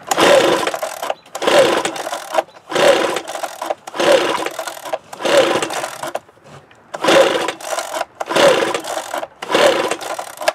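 Recoil starter rope of an Echo PB-265L backpack blower's small two-stroke engine pulled about eight times in quick succession, with a short pause about two-thirds of the way through. Each pull spins the engine over with a brief rasping whir, but it never fires, not even a pop on starting fluid.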